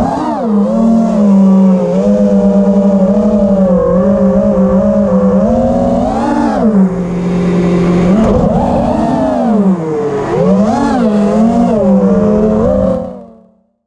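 FPV quadcopter's brushless motors and propellers whining in flight, the pitch rising and falling again and again with the throttle. The sound fades out near the end.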